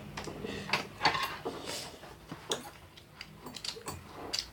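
Eating sounds from fried chicken and ramen: irregular short clicks and smacks of chewing, with utensils touching a dish.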